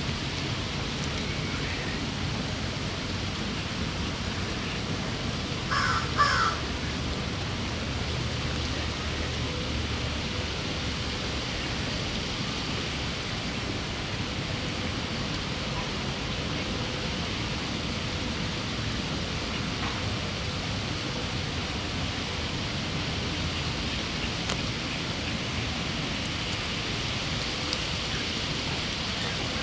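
Steady outdoor background hiss, with two short, harsh bird calls close together about six seconds in.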